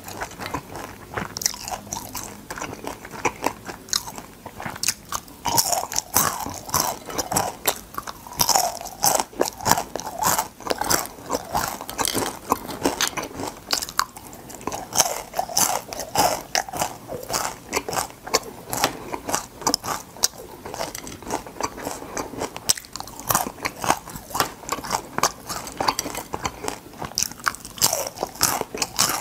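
Crunching and chewing of crispy deep-fried crabs, the fried shells cracking between the teeth in a dense, irregular run of crisp crunches.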